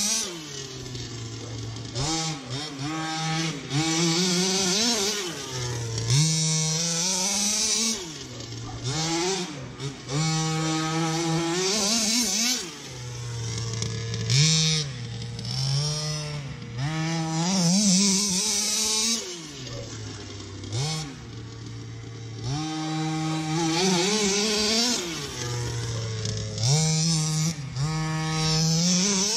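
Rovan Baja 5B large-scale RC buggy's small two-stroke petrol engine with an aftermarket exhaust, revving up and dropping back over and over as it is driven, the pitch rising and falling every couple of seconds.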